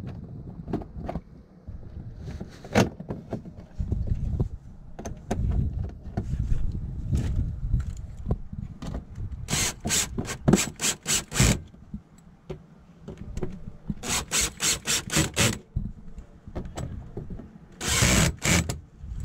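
Makita cordless drill driving screws through a plastic mud flap into its mounting inserts, heard as three runs of rapid, even clicking about ten seconds in, again about fourteen seconds in, and near the end. Before the first run there are scattered knocks and rubbing as the plastic flap is handled against the wheel well.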